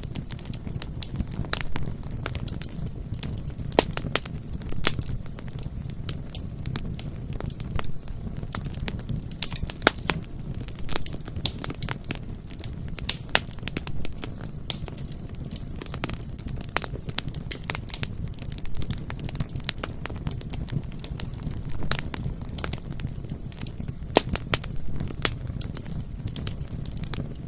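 Bonfire burning with a steady low rumble and frequent irregular sharp crackles and pops of burning wood.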